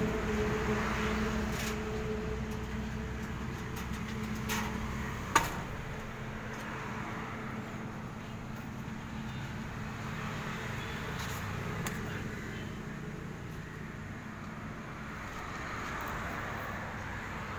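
A steady mechanical hum with low rumble that fades away over the first five seconds or so, a single sharp click about five seconds in, then low background noise with a few faint clicks.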